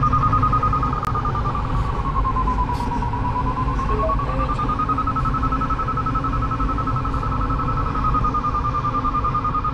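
Glider variometer sounding its climb tone: a rapid string of high beeps whose pitch sags a little about three seconds in and then rises again, signalling strong lift in a thermal. Under it runs a low steady rumble in the cockpit.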